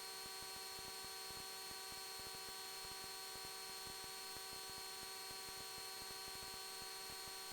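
Faint, steady electrical whine of several fixed tones over a hiss: the noise floor of the cockpit radio and intercom audio feed between transmissions.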